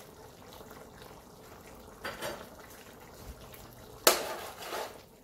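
Pot of chicken curry simmering faintly, with a brief clink about two seconds in. Near the end a metal spoon knocks sharply against the metal pot and scrapes through the curry as stirring begins.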